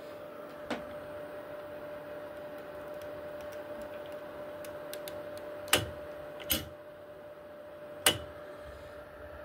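Anycubic Kobra 3 3D printer humming steadily, with a level tone, while its nozzle preheats at the start of an auto-level run. Four sharp clicks cut through the hum: one about a second in, and three close together in the second half.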